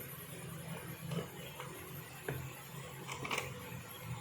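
A rag rubbing over a metal engine sealing surface, wiping off engine oil with thinner: a brief scrubbing about three seconds in and a few light knocks, over a steady low hum.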